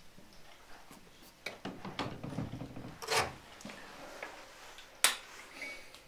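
A lock and the handle of a glazed wooden French door clicking and rattling as the door is unlocked and opened, with a louder knock about three seconds in and a sharp bang about five seconds in.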